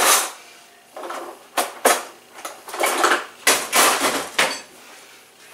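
Kitchenware being handled: several short clatters and rustles in quick succession, dying away after about four and a half seconds.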